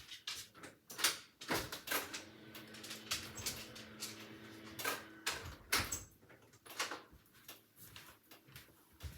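A door, likely a sliding door, being opened to let a dog out, with a run of knocks and clatters and a steady low tone for about three seconds in the middle.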